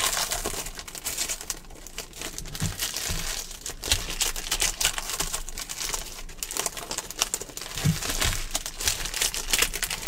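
Football trading card pack wrappers crinkling and being torn open by hand, with a steady stream of irregular crackles.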